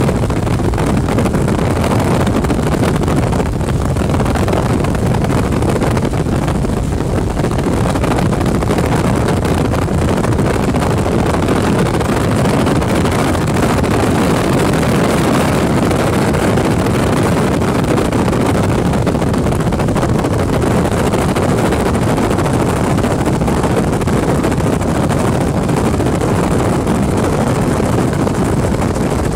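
Helicopter engine and rotor noise heard from inside the cabin in flight: a loud, steady drone mixed with wind rush.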